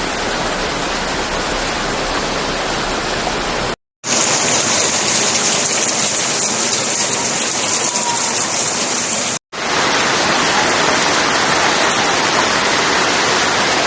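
Loud, steady noise of rushing water, floodwater in spate. It cuts out abruptly twice, about four and nine and a half seconds in, and resumes each time.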